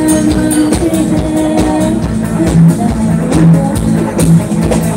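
Loud live band music: drum hits under long held notes.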